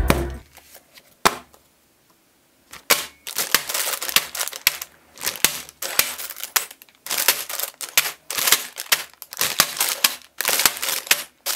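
Plastic bags of Lego pieces being handled: crinkling bag plastic and small bricks clattering in quick, irregular clicks. A single click comes about a second in, then a short quiet gap before the dense clicking starts.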